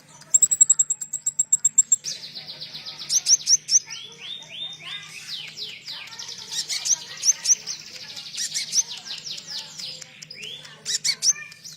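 Konin songbird singing, its song filled with learned cililin phrases: a quick series of very high, sharp notes, then a long run of rapid downslurred notes, ending with a few sharp chirps near the end. A faint low hum runs underneath.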